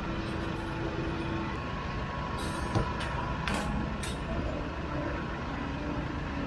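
Busy street-market ambience: a steady low rumble with faint chatter of voices, and a few sharp clicks and clatters about two to four seconds in, the loudest near the middle.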